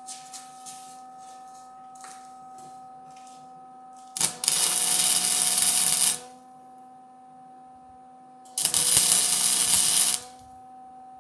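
Welding arc crackling in two short runs of about two seconds each, tacking or beading a steel door hinge, with a steady electrical hum between the runs.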